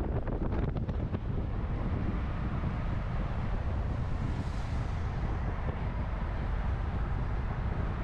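Wind rumbling and buffeting on the action camera's microphone, a steady low rumble with a few sharp clicks in the first second.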